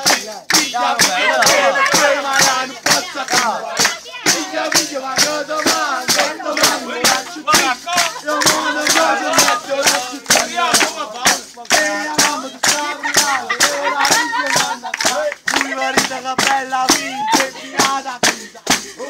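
Several voices singing a southern Italian folk song together over a sharp, steady percussive beat of about two to three strokes a second.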